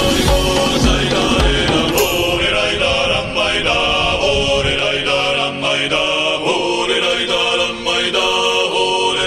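Background music: chanted vocal music, voices singing a repeated melodic chant over sustained tones.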